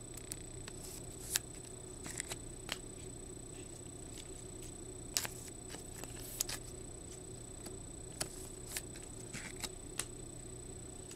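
Trading cards and rigid plastic top loaders being handled, making irregular light clicks and taps as cards are slid into the holders and set down. A steady faint hum runs underneath.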